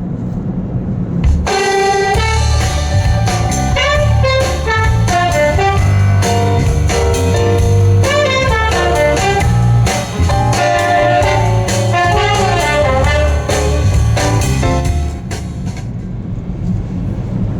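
Instrumental music, a melodic lead line over bass and drums, played back on a Lexus CT200h's Mark Levinson audio system. It is quiet for about the first second, comes in fully, and thins out near the end.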